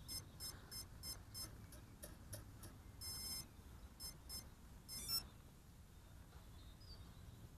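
Faint, short, high electronic beeps repeating about three times a second, then a longer beep and a quick rising run of tones about five seconds in: the power-up and arming beeps of the Align T-Rex 150 DFC micro helicopter's electronics, with the rotor still stopped.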